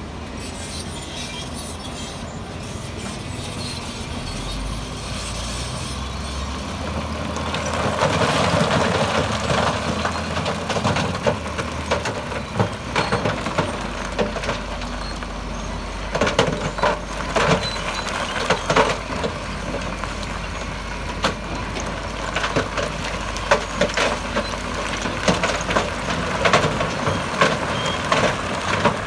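Heavy construction machinery's diesel engine running while stone is moved: a louder rush of sliding rock about eight seconds in, then repeated sharp knocks and clatter of rocks striking each other through the second half.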